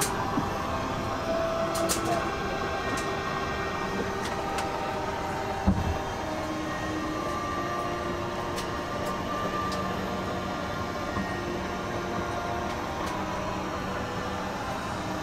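Steady cabin hum inside an Airbus A321-200 airliner before takeoff, with scattered small clicks and one dull thump about six seconds in.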